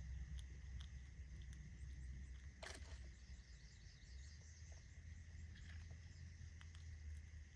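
Faint outdoor background: a steady low rumble and a faint high hum, with scattered small clicks and one sharper click a little under three seconds in.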